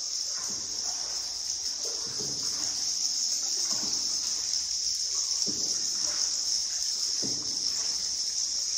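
A steady high-pitched insect chorus, with soft water splashes about every two seconds from a paddle stroking the river.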